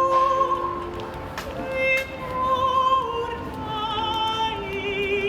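Music in an operatic style: long held melodic notes, several pitches at once, with a wavering vibrato on the longer notes near the end.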